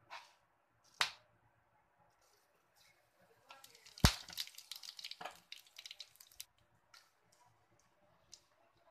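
Cumin seeds hitting hot oil in a pan: a sharp knock as they go in, then about three seconds of dense sizzling and crackling, thinning to a few scattered pops. A single sharp click comes about a second in.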